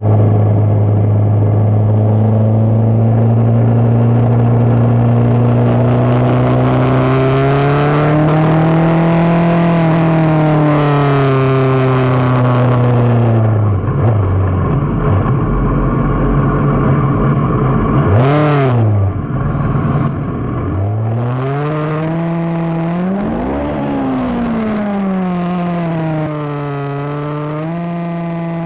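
Kawasaki ZX-6R 636 sportbike's inline-four engine holding a steady high pitch at speed, with wind rush. About halfway through, the revs fall away and the engine is revved several times, its pitch sweeping up and down.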